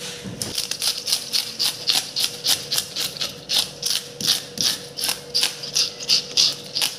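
A toothed fish scaler raked quickly and repeatedly against a whole fish's scales on a wooden block, about three rasping strokes a second as the scales are stripped off.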